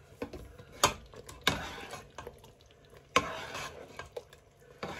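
A metal spoon stirring thick apple pie filling in a cooking pot: a few sharp clinks of the spoon against the pot, and two scraping sweeps through the thickened apples about 1.5 and 3 seconds in.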